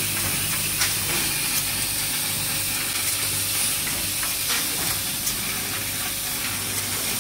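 Quad-seal coffee-bean packaging machine running: a steady hiss over a low, even hum, with scattered light clicks.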